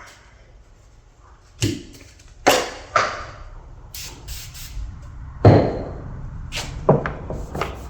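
Handling and cleaning of a cracked plastic airbox: a series of short knocks and rubbing noises against the plastic, with a few brief high hisses about four seconds in.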